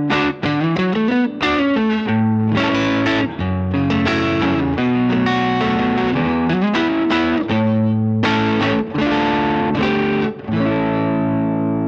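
Humbucker-equipped Maybach Lester 59 electric guitar played through an amp on a crunch setting: mildly overdriven chords and short riffs, quick strums in the first couple of seconds, then longer held chords, the last one ringing out near the end.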